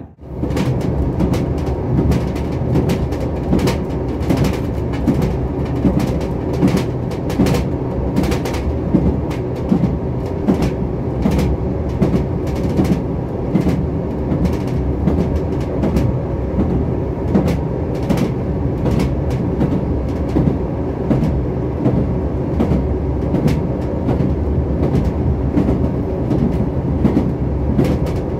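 Passenger train running at speed, heard from inside the carriage: a steady rumble of wheels on track with repeated clicks as the wheels pass over rail joints.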